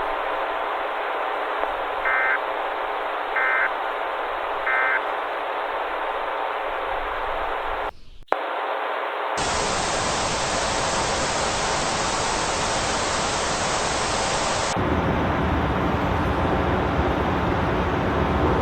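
Broadcast static hiss with three short two-tone data bursts about a second apart, the EAS end-of-message signal closing the alert. Near the middle the hiss cuts out briefly, then returns as louder, brighter static.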